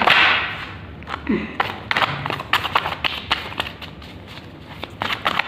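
Tarot cards being shuffled by hand: many quick, irregular soft clicks and slaps as cards drop onto and tap against the deck.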